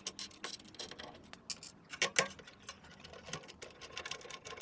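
Irregular small clicks and taps of a nut driver and loose metal nuts as the nuts holding a pinball machine's speaker panel are unscrewed and handled, with a faint steady hum underneath.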